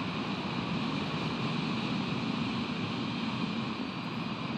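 Steady rushing wind and ocean surf on an outdoor nest-camera microphone, even throughout with no distinct events.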